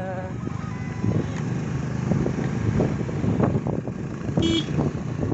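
Motor scooter running along a road, a steady engine and road rumble from the rider's own scooter, with a short horn toot about four and a half seconds in.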